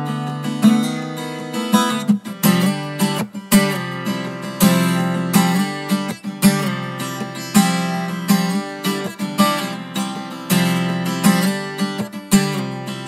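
Acoustic guitar strummed in a steady rhythm, chords ringing between sharp strokes on the strings.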